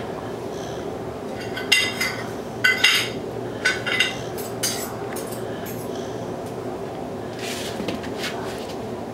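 Metal silverware clinking against dishes: a run of sharp clinks and clatters, bunched between about two and six seconds in with a few more near the end, over a steady low hum.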